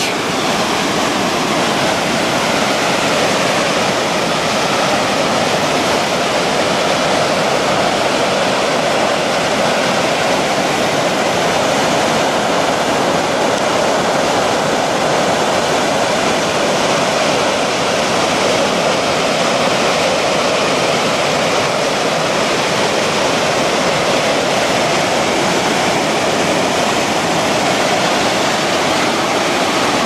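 Large waterfall close by: a loud, steady roar of falling water.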